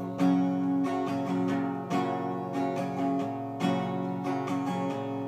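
Acoustic guitar strummed through an instrumental break in a folk song, with strong chord strokes about every second and a half and lighter strums between.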